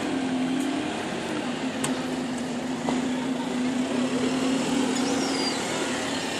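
Single-deck bus pulling away and driving past, its engine giving a steady, even drone.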